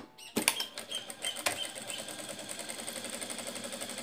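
Sewing machine stitching at a steady speed, a fast, even run of needle strokes that starts about half a second in, with a few sharper clicks over the first second or so.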